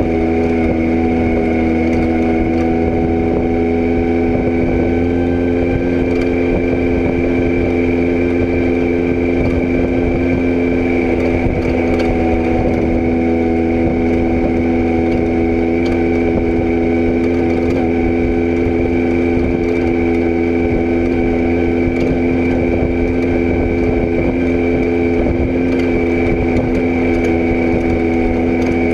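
Engine running at a steady speed: a constant, even drone that does not rise or fall.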